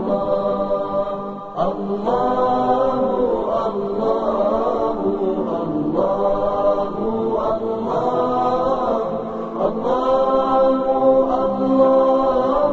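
Wordless sung vocal 'aahs', chant-like and without instruments, in long held phrases that swell and glide, with short breaks about one and a half, six and nearly ten seconds in.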